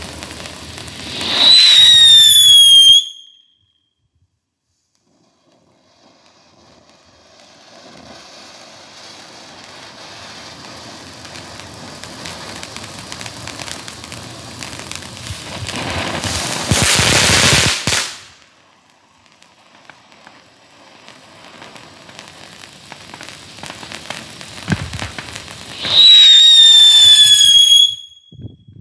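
Tank Engine novelty ground firework going off. It opens with a loud whistle sliding down in pitch, falls briefly silent, then sprays sparks with a hiss that grows to a loud rush. After that come scattered crackles and a second falling whistle near the end.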